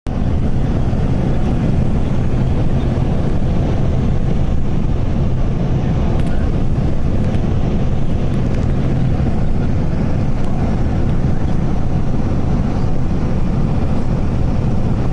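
Steady low rumble of road and wind noise inside a car travelling at highway speed.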